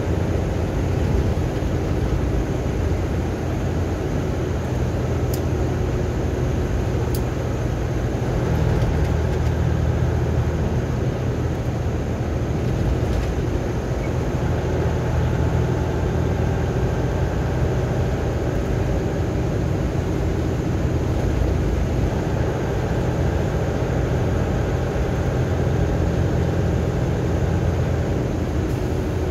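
Steady road and engine noise of a vehicle cruising at highway speed, heard from inside the cabin as an even low drone.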